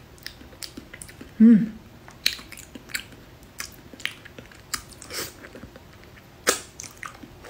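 Close-up wet chewing and lip smacking as soft, sticky durian flesh is eaten, a run of short sharp clicks throughout. About a second and a half in, a short hummed "mm" of approval is the loudest sound.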